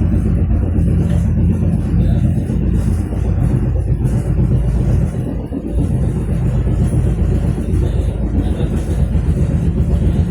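Steady low rumble of a moving vehicle, with a faint engine hum, easing briefly about halfway through.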